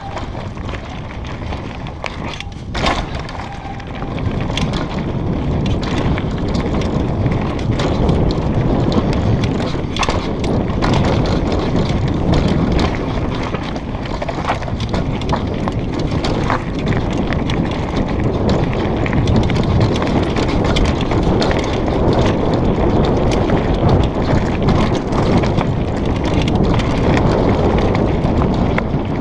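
Mountain bike riding fast down a dirt trail: tyres rumbling over dirt, rocks and roots and the bike rattling, mixed with heavy wind noise on the microphone. It gets louder about four seconds in, with a few sharp knocks from bumps along the way.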